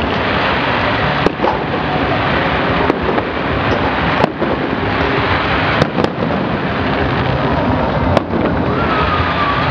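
Aerial firework shells bursting during a display: about six sharp bangs spread through, over continuous dense noise.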